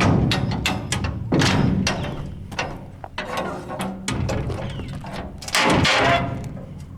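Steel dump-trailer gate being swung and worked shut: metal clanks, rattles and a grinding hinge, with loud knocks at the start, about a second and a half in, and again near the end. The dry hinge needs lubricating.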